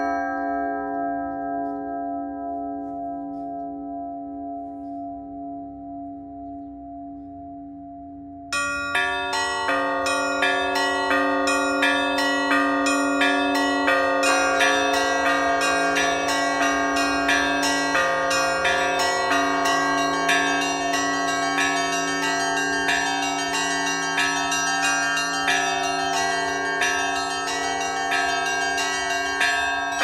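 Russian Orthodox church bells of the Epiphany Cathedral bell tower in Kazan. First the tones of a bell die away; then, about eight seconds in, a full peal starts suddenly, with many bells of different pitches struck quickly in a dense, rhythmic pattern.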